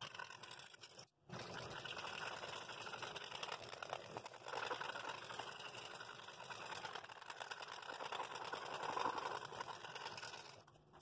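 Scroll saw cutting a thin wooden board: a steady, faint hiss of the fast up-and-down blade chewing through the wood. It breaks off briefly about a second in and stops just before the end.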